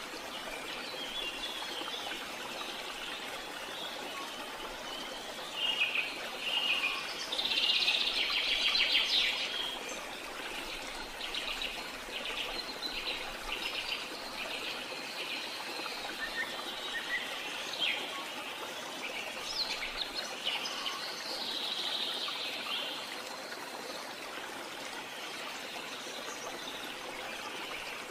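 Birds chirping and singing, with bursts of rapid trilled notes through the middle, over a steady background hiss.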